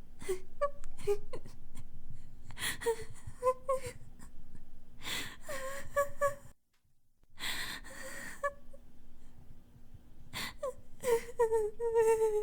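A woman crying: whimpering, wailing sobs broken by sharp gasping breaths. It breaks off about six and a half seconds in, and a second bout of sobbing starts that ends in a long falling wail.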